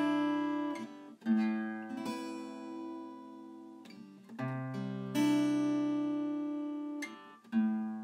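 Background music: slow chords on an acoustic guitar, each strummed and left to ring and fade before the next.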